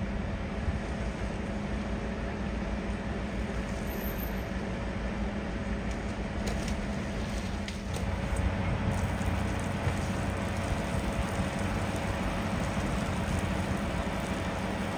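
Fire appliance's engine running steadily, a continuous low drone with a steady hum; it grows a little louder about eight seconds in.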